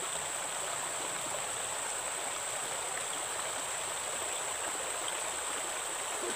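Shallow forest stream flowing, a steady even rush of water, with a thin steady high-pitched tone above it.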